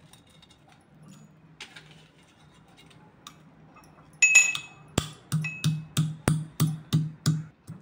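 Whole spices (cloves, black pepper, cinnamon and ginger) being pounded coarsely with a pestle in a mortar. There are faint light taps at first, then from about halfway a run of about ten sharp strikes, nearly three a second, with a ringing metallic clink.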